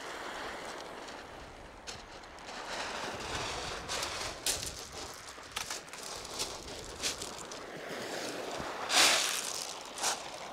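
Wind and surf noise on a beach, with scattered short clicks and knocks and a brief louder rush about nine seconds in.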